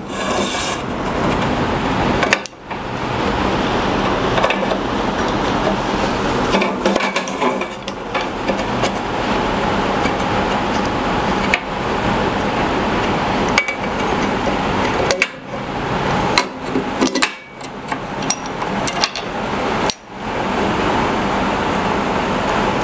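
Scattered clicks and clinks of small metal fence parts being handled and fitted on the router fence, over a steady rushing noise.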